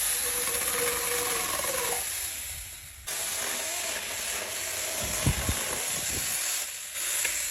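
Mini battery-powered electric chainsaw cutting through wood: a steady hissing rasp of the chain with a faint motor whine. It stops abruptly about three seconds in, restarts at once, and has a couple of low thumps later.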